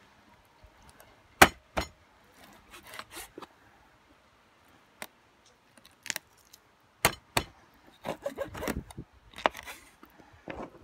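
A chef's knife cutting the backbone out of a quail on a plastic cutting board. It makes irregular sharp clicks and taps as the blade meets the small bones and the board, with light scraping in between.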